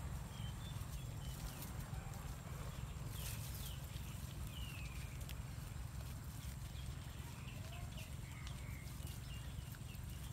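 Goats browsing on a leafy shrub: faint rustling of leaves and small clicks and snaps of stems being pulled and chewed, over a steady low rumble.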